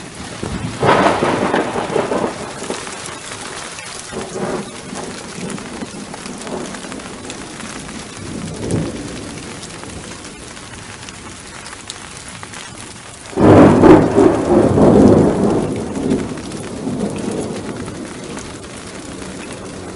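Steady rain with thunder: a rumble about a second in, a fainter one near the middle, and a loud, sudden thunderclap about two-thirds of the way through that rumbles away over a few seconds.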